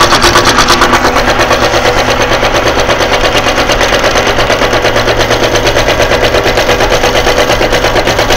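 Reciprocating power flanging machine running, its die hammering up and down at about eight or nine strokes a second over a steady motor hum, as a sheet-metal panel is fed through and bent up into a crisp 90-degree flange.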